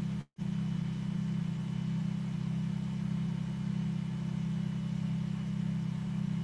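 A steady low hum, even and unchanging, broken by a brief gap of silence about a third of a second in.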